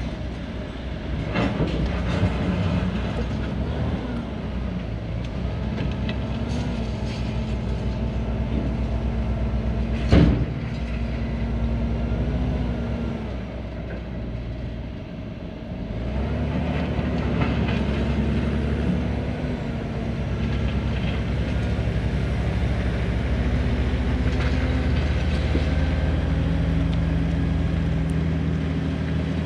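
Hyundai 290 LC hydraulic excavator working on concrete demolition: the diesel engine runs under load, its pitch rising and falling, with scattered clanks and one loud crunching knock about ten seconds in.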